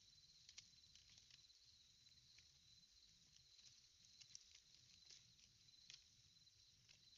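Faint, steady, high-pitched chorus of insects, with a few scattered faint clicks.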